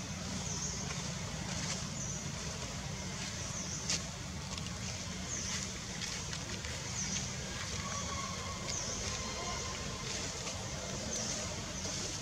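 Outdoor ambience: a steady low rumble with short high chirps every second or so and a few faint clicks.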